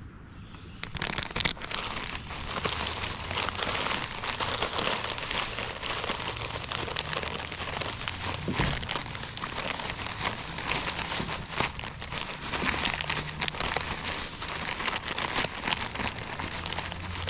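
Plastic bait packaging crinkling and crackling as it is handled, starting about a second in and going on steadily.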